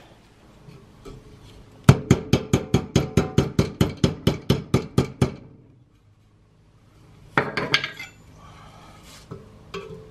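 Rapid metal-on-metal tapping on a rusted steel snap ring in a car's wheel hub, about five ringing taps a second for some three seconds and fading out, then a few more clicks and scrapes about two seconds later, as the seized ring is worked out of its groove.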